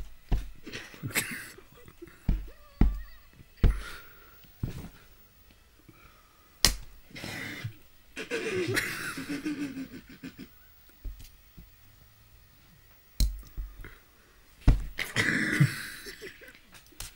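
About ten sharp hand slaps and smacks on a person's leg through a blanket as a hard-boiled egg is cracked and crushed, irregularly spaced with a pause in the middle, and a few stretches of voice between them.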